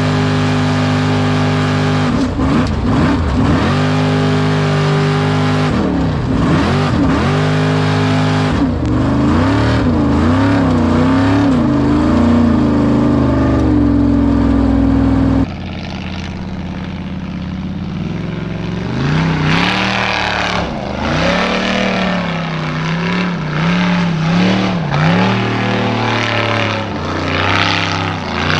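Formula Offroad racing buggy's engine revving hard and unevenly as it climbs a steep hill, heard loud from an in-car camera, its pitch rising and falling with the throttle. About halfway through, the sound cuts to a buggy engine heard from trackside, quieter, revving in quick up-and-down surges.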